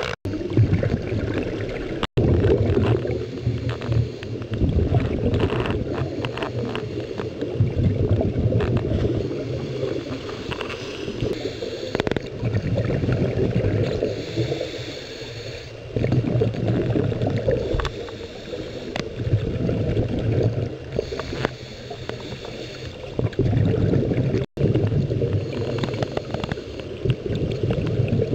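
Scuba regulator breathing recorded underwater: surges of gurgling exhaled bubbles, with a short hiss of inhaled air through the regulator every few seconds.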